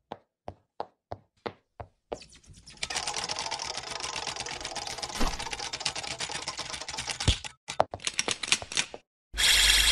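Typewriter-style clicking sound effects: first a few single clicks about three a second, then a dense, rapid run of key clicks for about seven seconds. Near the end comes a loud, bright burst with several held ringing tones.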